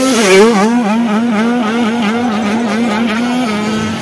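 Motocross dirt bike engine revving close by, its pitch rising and falling about three to four times a second as the rider works the throttle, then holding steady near the end.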